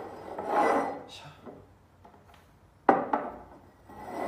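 Ceramic mugs being slid and set down on a wooden tabletop: a scrape in the first second, then two sharp knocks just under three seconds in.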